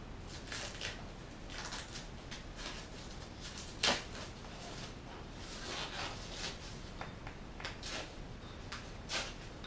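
Hands working on bicycle parts and plastic packaging: scattered light rustles and clicks, with a sharper click about four seconds in and another near the end.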